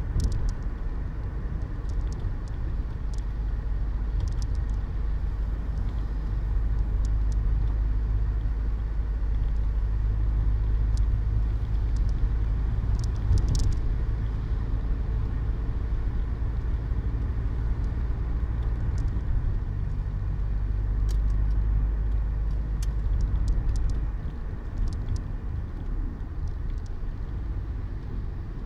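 Citroën BX 14 RE's 1.4-litre four-cylinder petrol engine and tyres on a wet road, heard from inside the cabin while driving: a steady low rumble with scattered faint ticks. The rumble eases a little near the end.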